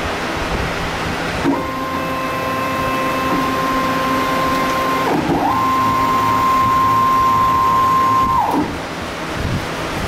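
The CNC-converted Grizzly G0602 lathe's axis drive whines as the carriage traverses under program control. A steady high whine starts abruptly about a second and a half in, dips and rises again about five seconds in as the motion changes, then winds down and stops near the end. It sits over a steady rushing noise.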